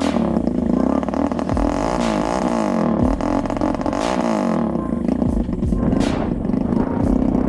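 The homemade kart's Bashan 200cc single-cylinder engine running steadily while the kart stands still.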